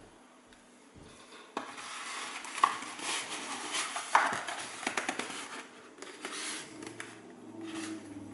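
Handling noise from Fatshark Dominator V3 FPV goggles being fitted onto a foam mannequin head: plastic and strap rubbing and scraping against the foam, with two sharp clicks about a second and a half apart.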